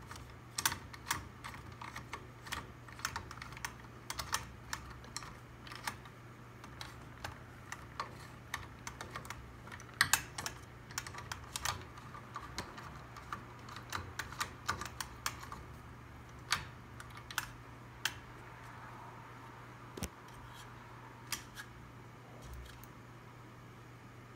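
Screwdriver and screws clicking against the metal blade bracket and motor hub of a Hampton Bay Middleton ceiling fan as a blade is screwed on: irregular sharp clicks and ticks, thinning out after about 16 seconds, over a steady low hum.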